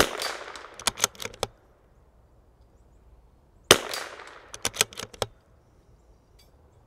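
Two shots from a CZ 457 MTR .22 LR bolt-action rifle, about three and a half seconds apart, each a sharp crack with a short fading echo. About a second after each shot comes a quick run of four clicks, the bolt being worked to chamber the next round.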